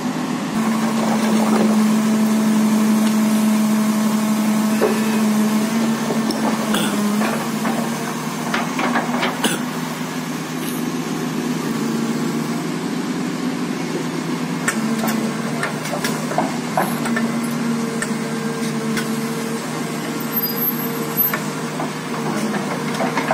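Diesel engine of a tracked hydraulic excavator running steadily under load, with scattered metal clanks and knocks as it hooks and drags a stripped excavator undercarriage on its steel tracks. A higher steady whine joins in the second half.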